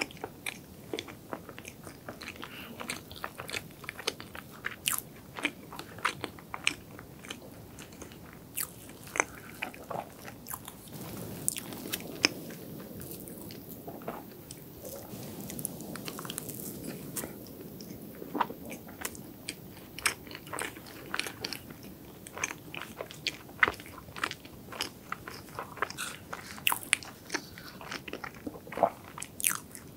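Close-miked eating sounds: chewing mouthfuls of chocolate cake, with many sharp, wet mouth clicks and smacks.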